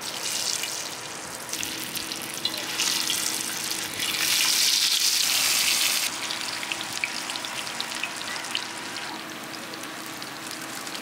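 Masala-coated banana slices sizzling as they go into hot oil in a wide metal pan. The crackling frying builds and is loudest about four to six seconds in, then settles to a steady sizzle.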